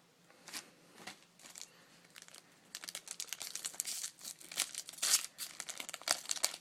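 Wrapper of a Topps Chrome trading-card pack crinkling and tearing as the pack is opened. A few light taps and rustles come first, then from about three seconds in a dense crinkling that keeps going.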